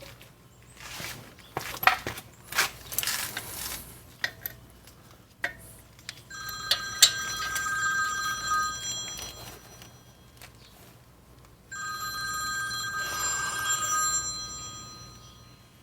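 A phone ringtone ringing twice, each ring a few seconds long with a short gap between. Before the ringing there are sharp metallic clinks and taps of tools.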